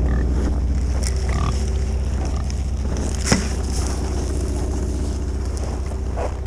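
Steady low hum of a running motor, with one sharp click a little over three seconds in.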